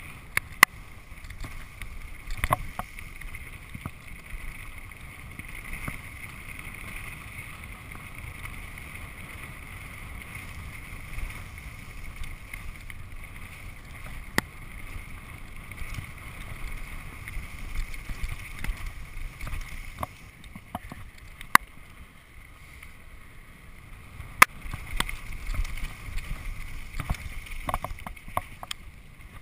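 Mountain bike rolling fast over a dirt singletrack: a steady rumble of tyres on dirt, with a few sharp clicks and clatters as the bike jolts over bumps and roots.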